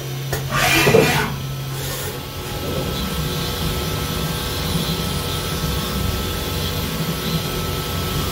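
Haas CNC vertical mill machining a UHMW plastic block on its fourth-axis rotary table with an end mill. A brief low hum and a short rush of noise in the first two seconds as the rotary turns the part and the spindle comes down, then the spindle and cutter run steadily through the plastic.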